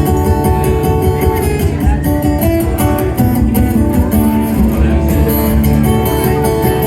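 Guitar playing chords in an instrumental passage of a live song, with no singing.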